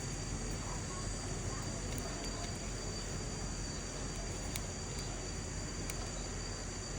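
Steady background hiss with a continuous high-pitched whine, broken by a few faint light clicks.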